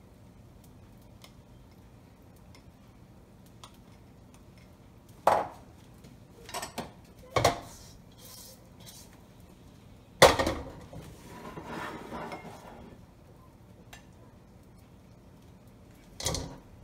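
Kitchen utensils knocking and clattering against a nonstick wok and a ceramic plate as fried rice is emptied out onto the plate. There are a handful of separate sharp knocks, the loudest about ten seconds in, followed by a couple of seconds of scraping, and one more knock near the end.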